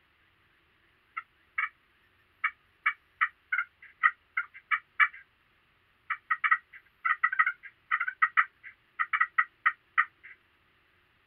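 Turkey clucking and cutting: a rapid, uneven run of short sharp notes, a pause of about a second, then a second run.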